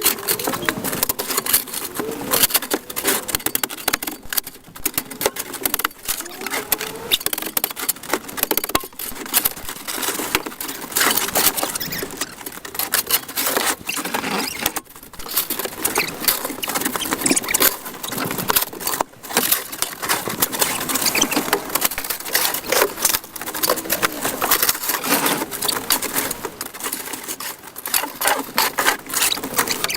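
Speeded-up sound of snow being scraped and shovelled off a patio: a dense, fast, irregular clatter of scraping, with short high squeaks here and there.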